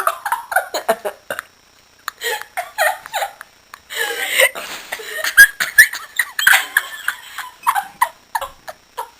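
Giggling laughter in short, choppy bursts, breaking off for about half a second near a second and a half in, then starting again.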